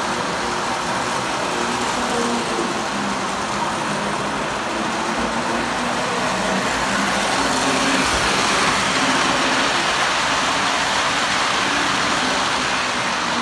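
Lionel #2055 O-gauge toy steam locomotive and its train running on three-rail tubular track: a steady whirr of the electric motor and gearing with the rumble of wheels on the metal rails, growing louder around the middle as the train comes close. The motor and every moving part are freshly cleaned and oiled, and it runs smoothly.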